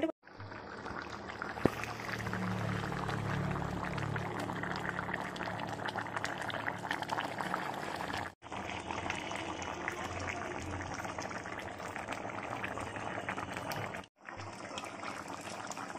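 Fish curry with cauliflower and potato boiling in a pan: a steady crackle of popping, bubbling liquid. It breaks off abruptly twice, about eight and fourteen seconds in.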